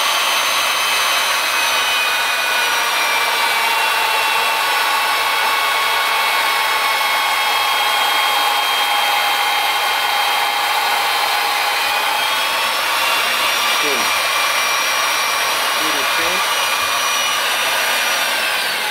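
Electric hand drill mounted in a vertical drill stand, running at medium-low speed with a steady motor whine while a fine bit drills a small pilot hole through a thin metal plate. The whine sags a little in pitch through the middle and recovers, then winds down just before the end as the drill is switched off.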